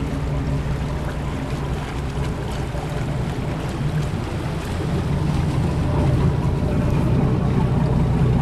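Luhrs 34 Convertible's inboard engines running at low speed as the boat turns, a steady low hum that grows louder about five seconds in as it comes close.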